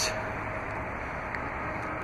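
Steady outdoor background noise, an even rumble and hiss with no distinct event.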